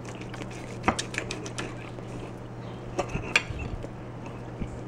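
Steel knife and fork clinking and scraping against a glass plate while cutting a grilled pork steak, with short sharp clicks in two clusters, about a second in and again about three seconds in.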